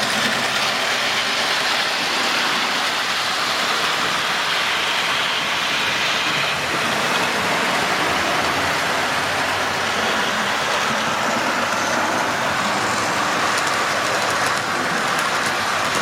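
Model railway train running on the layout, a steady rolling noise of its wheels on the track and its small motor.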